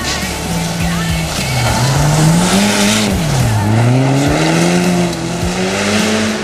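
Toyota Celica rally car's engine revving hard as it slides on snow: the pitch climbs, drops sharply about three seconds in, then climbs again.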